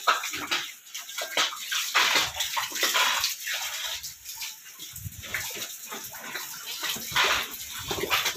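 Water from a garden hose running and splashing into a sow's trough in a farrowing crate, broken by irregular splashes and slurps as the sow drinks.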